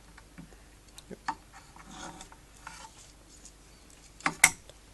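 Drawer rails and cabinet panel being handled and fitted: scattered light taps, clicks and rubbing, with two sharp knocks near the end.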